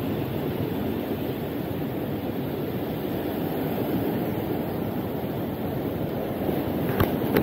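Small waves breaking and washing up a sandy shore: a steady rush of surf, with one short sharp click near the end.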